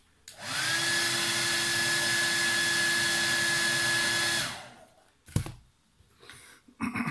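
Hand-held hair dryer switched on, its whine rising as it spins up, then blowing steadily for about four seconds onto a bag's zipper to heat it, before it is switched off and winds down. A sharp click follows about a second later.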